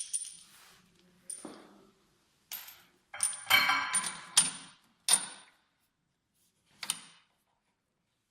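Sharp clinks and clatters of small hard parts being handled and fitted together. A dense cluster of ringing metallic clanks comes in the middle, then one last clink about seven seconds in.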